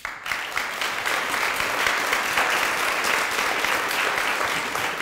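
A large audience applauding, the clapping starting abruptly and holding steady.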